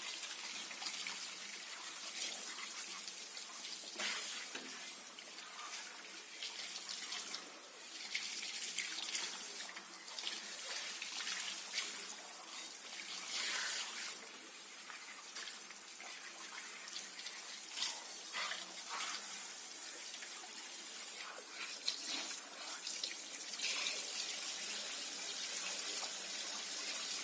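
Running water in a bathtub, splashing steadily over a dog's wet coat as it is washed, with small rises and falls as the stream moves.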